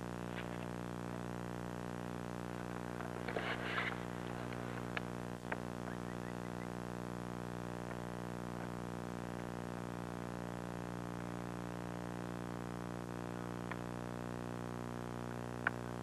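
Steady low hum with an even stack of overtones, unchanging throughout. A brief noisy rustle comes about three to four seconds in, and there are a few faint clicks.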